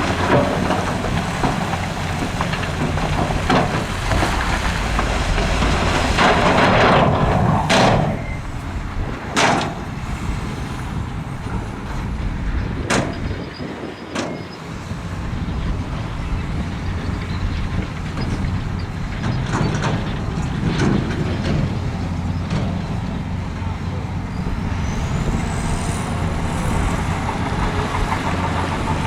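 Heavy diesel earthmoving machinery running with a steady low engine drone, louder for a couple of seconds about seven seconds in, with a few short sharp sounds over it and a rising whine near the end.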